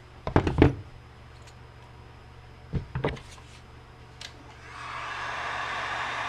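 A few clattering knocks of metal parts and tools being handled, then a hot-air heat gun switched on about four and a half seconds in, blowing with a steady hiss. It is heating the small nitro engine's case so the tight parts will come apart.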